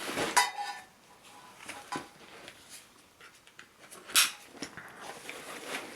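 A rucksack being handled: rustling of the fabric in the first second, then scattered clicks and a sharp scrape about four seconds in, as straps and buckles are moved.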